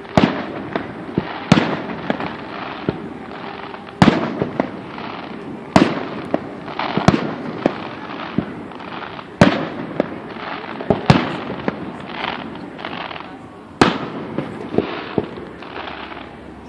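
Fireworks display: aerial shells bursting in sharp booms every second or two, with crackling between them.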